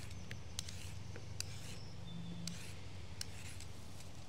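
Carrot being peeled: a few short, light scrapes of a vegetable peeler along the carrot, over a low steady hum.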